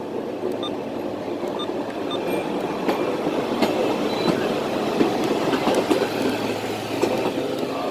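A CSX freight train rolling past close by: a steady rumble of cars on the rails, with scattered clicks and knocks from the wheels.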